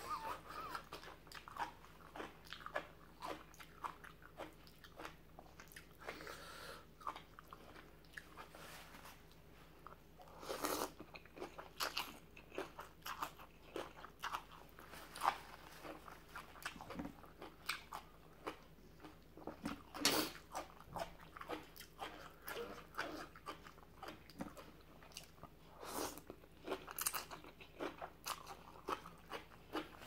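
A person chewing and crunching a seafood papaya salad close to the microphone: irregular crunchy bites and mouth clicks.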